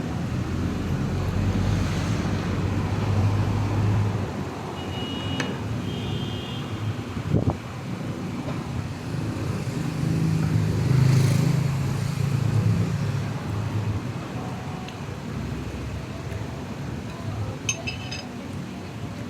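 Road traffic: vehicles passing with a low engine rumble that swells twice, with a few brief high squeaks and clicks.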